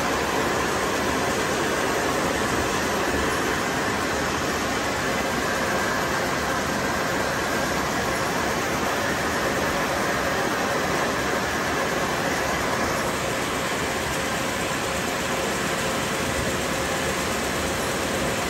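Steady hum and hiss of factory machinery across a printing and paper-converting floor, with a few faint steady tones running through it.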